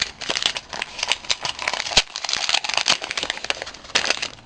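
Packaging crinkling and rustling as a small wrapped gift package is pulled open by hand: dense irregular crackles with a sharper crack about two seconds in.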